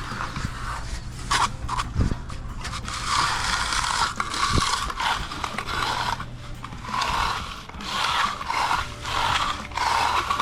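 Repeated scraping strokes of a hand tool over fresh concrete, coming about once a second in the second half, over a steady low hum.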